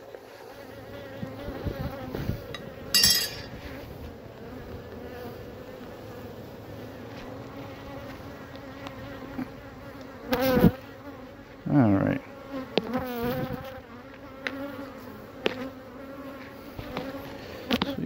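Honeybees buzzing around an open hive: a steady hum, with a few louder buzzes that swoop in pitch between about ten and thirteen seconds in. A brief scrape about three seconds in.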